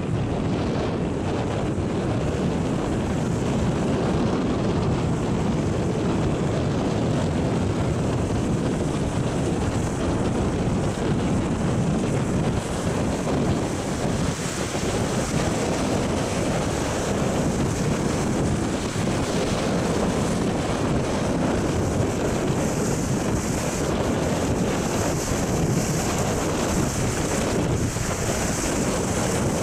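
Storm waves surging and breaking against the rocks of a stone jetty, a continuous rush of surf, with wind buffeting the microphone.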